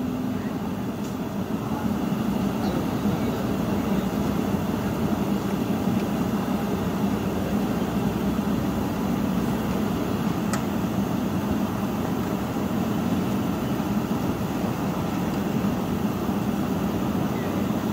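Steady roar of gas burners firing under large woks of hot frying oil, with a single light click about ten seconds in.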